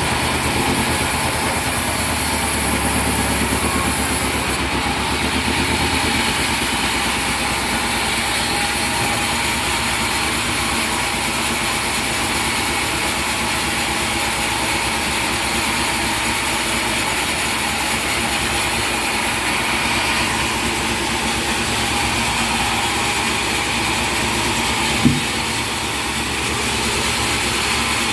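Sawmill machinery running with a steady engine-like drone. There is one sharp knock about 25 seconds in.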